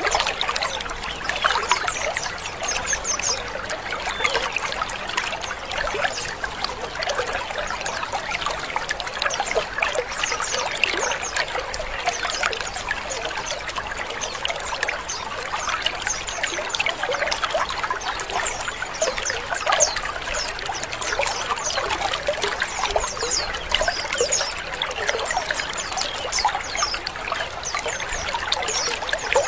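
A colony of white-eyes (pleci) chattering together: many short, overlapping chirps and twitters, with quick high notes, running without a break.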